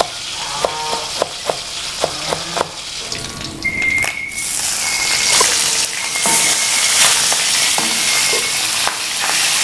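Pieces of mackerel tuna frying in a wok with very little oil, sizzling steadily. A metal spatula clicks and rings against the wok in the first few seconds. The sizzle grows louder from about halfway, and a thin steady high tone joins about a third of the way in.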